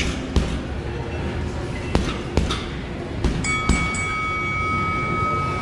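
Boxing gloves striking a heavy bag in three quick one-two pairs of thuds, then about three and a half seconds in a round timer's bell-like tone rings steadily for a couple of seconds, marking the end of the round and the start of the rest period.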